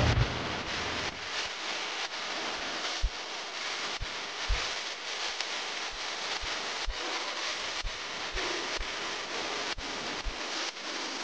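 Steady outdoor noise like wind on the microphone, with a dozen or so soft, irregular low thumps.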